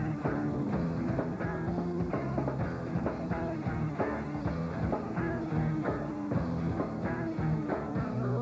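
Rock music playing, with a steady beat.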